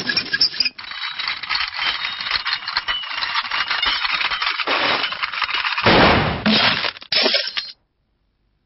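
Cartoon slapstick sound effects: a dense, rapid rattle of clicks and knocks, with a louder burst of noise about six seconds in, that cuts off suddenly near the end.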